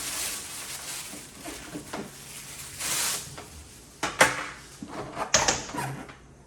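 Handling noises as a newly unboxed air fryer oven and its packaging are moved about: a short rustle about three seconds in, then several sharp knocks and clatter, the loudest after about four seconds.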